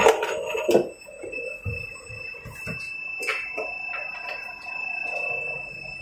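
Injection moulding machine working an open refrigerator panel mould: a few sharp metallic clunks in the first second, then lighter knocks every second or so, over a steady high-pitched tone.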